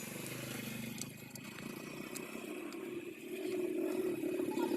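A motor engine running with a steady hum, growing louder from about three seconds in.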